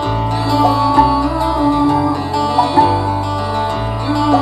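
Live band playing an instrumental passage between vocal lines: acoustic guitar, electric bass and keyboards over drums, with held bass notes changing about once a second and a melody that bends between notes.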